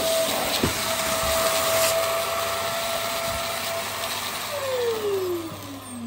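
Vax Mach Air upright vacuum cleaner running on carpet with a steady whine. Its motor then winds down, the whine falling in pitch near the end.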